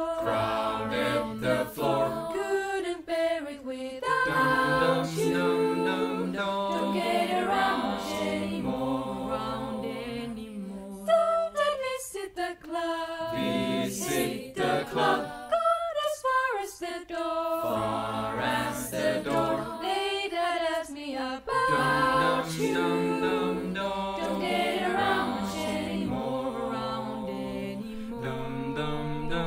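A cappella choir of young women's and men's voices singing in harmony, a virtual choir mixed from separately recorded parts, with short pauses between phrases.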